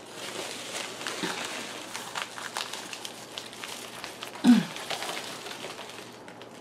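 Paper and plastic packing crinkling and rustling in irregular small crackles as plant cuttings are handled and lifted out of a cardboard box. A brief falling voice-like tone, the loudest sound, comes about four and a half seconds in.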